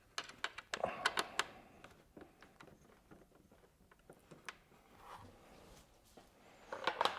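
Small metallic clicks and taps as bolts and a hex-bit socket are handled and fitted into a motorcycle bracket by hand. There is an irregular run of clicks in the first second or so, a few single clicks after that, and a quick flurry near the end.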